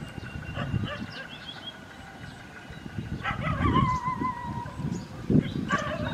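A dog howling: one long, wavering cry about three seconds in, and another cry starting near the end.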